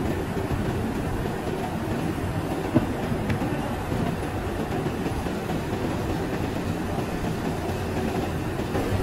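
Steady rumbling, clattering background noise of a factory floor, with one sharp knock just under three seconds in.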